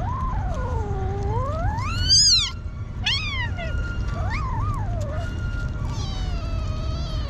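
Hungry kitten meowing while feeding: a long meow that dips and then climbs sharply to its loudest, followed by two shorter meows and a final drawn-out one. A steady low rumble runs underneath.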